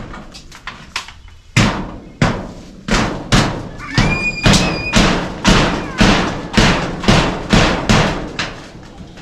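A tool striking hard again and again, about two blows a second, each blow sharp with a brief ringing decay, as in demolition work. A short, steady, high whistle sounds about four seconds in.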